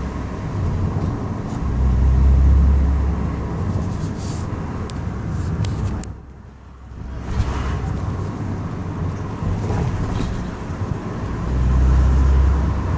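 BMW E39 driving with steady low road and running noise, and a few sharp metallic clicks and knocks between about four and six seconds in and once more a little later. The knocking is a metallic rattle from the left rear axle.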